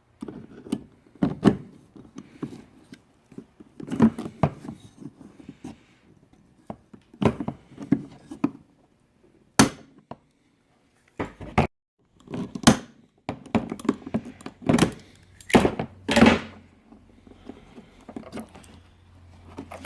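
Hand pop-rivet gun setting rivets through a metal repair plate: a series of sharp clicks and knocks as the handles are squeezed and the rivet mandrels snap, with handling noise of the metal parts in between.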